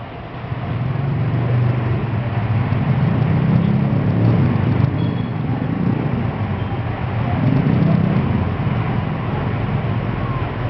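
Crowd of spectators around a boxing ring, a loud continuous hubbub that swells about half a second in and stays up with slow surges.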